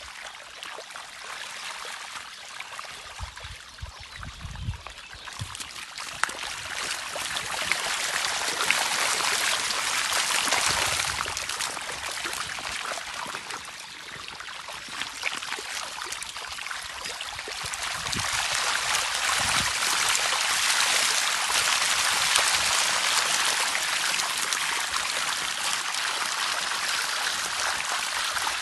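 Shallow water rippling and trickling over stones in a river running nearly dry. It gets louder from about seven seconds in and again from about eighteen seconds.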